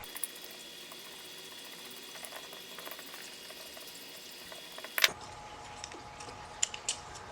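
Faint steady hiss, broken by a sharp click about five seconds in and then a few light clicks, as the motor's mounting bolts are tightened back up.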